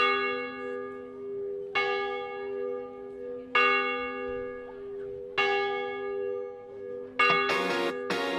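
Large bell tolling as a morning wake-up bell: four strokes about two seconds apart, each ringing on after the strike. Near the end, music comes in with sharp strummed hits over the bell's ringing.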